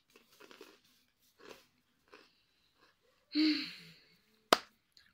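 Faint rustling of hands and small items, then a loud breathy exhale with a little voice in it about three seconds in, and a single sharp smack about a second later, the loudest sound.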